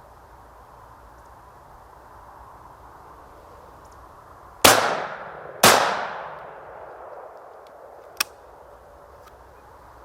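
Two shotgun shots about a second apart, each with a long echoing tail, fired at a flying woodcock and both missing; a short sharp click follows a couple of seconds later.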